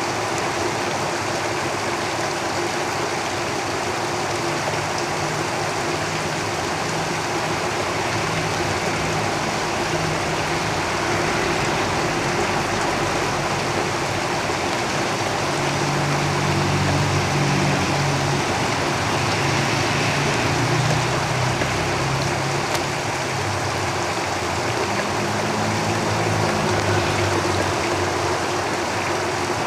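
Steady heavy rain falling on a roof, with the low rumble of road vehicles passing underneath it, swelling from about halfway through and again near the end.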